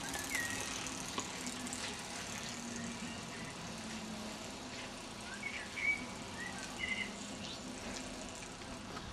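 Quiet outdoor ambience: a steady hiss with a few short high chirps, one near the start and a cluster around the middle to later part.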